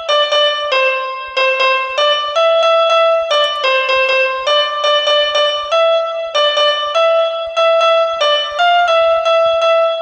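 Background music: a keyboard melody of short, steady notes, changing a few times a second.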